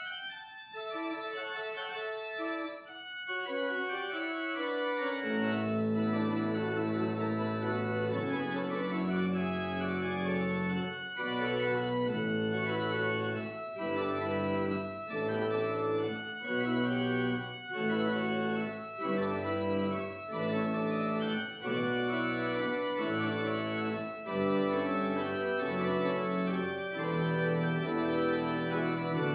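Church organ played solo: sustained chords, at first only higher voices stepping down, then deep bass notes come in about five seconds in and full chords move on about once a second.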